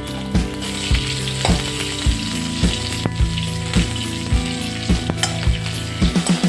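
Curry leaves, dried red chillies and mustard seeds sizzling in hot oil in a pan, stirred in regular strokes a little under twice a second.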